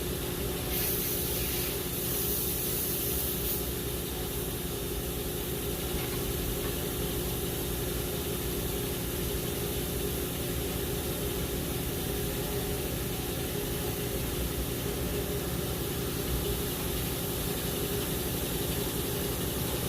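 Steady hiss over a low hum, with a brief brighter, sharper hiss about one to four seconds in.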